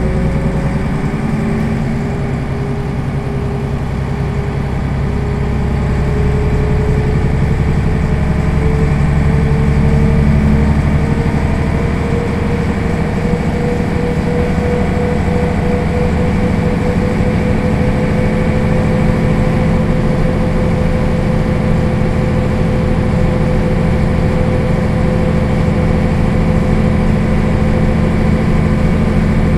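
Mercedes-Benz O 405 city bus's inline-six diesel engine idling while the bus stands still, heard inside the passenger cabin. The steady rumble carries a whining tone that rises a little over the first few seconds and then holds.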